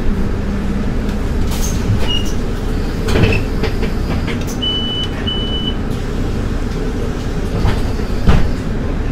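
Solaris Urbino 12 IV city bus running, a steady low rumble with knocks and rattles. Two short high beeps sound about five seconds in.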